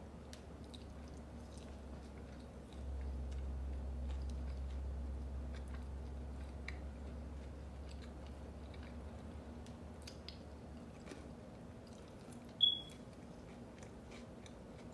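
Chewing and biting food, with small wet mouth clicks. A low hum comes in about three seconds in and fades away, and a brief high-pitched chirp, the loudest sound, comes near the end.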